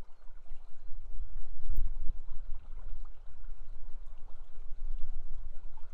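River water flowing steadily, with a low rumble that rises and falls and a sharp click about two seconds in.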